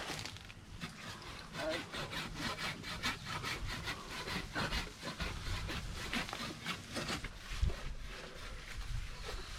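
Hand saw cutting through a tree branch with quick, even back-and-forth strokes.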